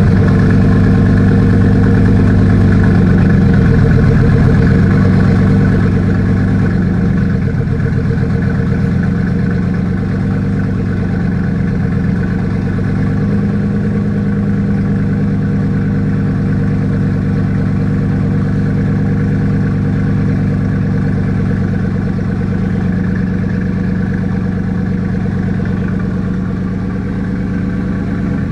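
Bugatti Chiron Super Sport 300+'s quad-turbocharged 8.0-litre W16 engine idling just after start-up. It runs a little louder for the first six seconds or so, then settles into a steady, even idle.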